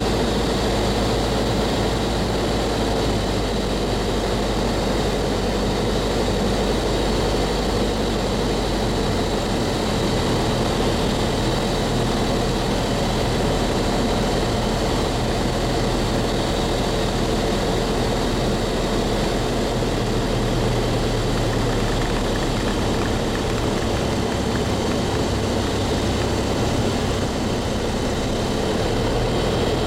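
Single piston engine and propeller of a light aircraft on final approach, heard from inside the cabin as a steady drone. The low engine note shifts slightly about nine seconds in.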